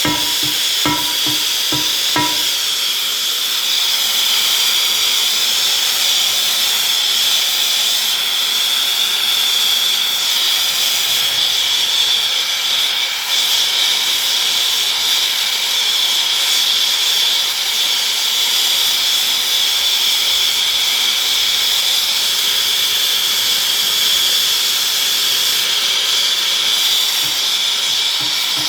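Steady, loud hiss of rushing gas with a bright high edge, running on without a break. In the first two seconds a few short ringing knocks sound over it.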